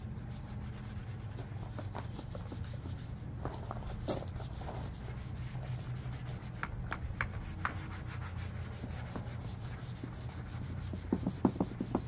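Sponge wiping and rubbing the plastic cover of a Honda EU1000i generator with cleaner, with a quick cluster of short, sharp sounds near the end.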